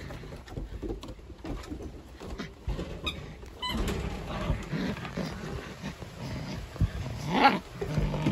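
German Shepherd–Husky mix puppies growling as they tug at a plush toy together, with one louder, higher puppy yip about seven and a half seconds in.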